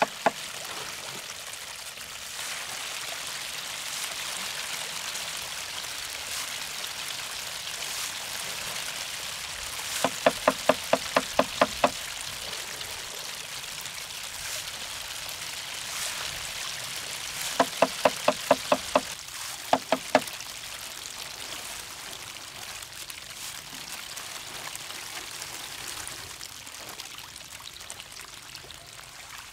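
Hundreds of small snakehead fry splashing at the water surface as they feed, a steady hiss of splashing. Twice, about ten and eighteen seconds in, a loud run of short pitched pulses, about five a second, cuts through.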